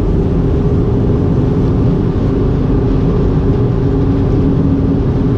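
Steady engine and road noise inside a car cabin at highway speed, with a constant low drone.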